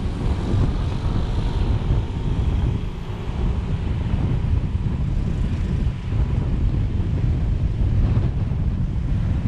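Driving noise picked up by a car-mounted GoPro: a steady low rumble of wind on the microphone, with tyre and road noise and passing traffic.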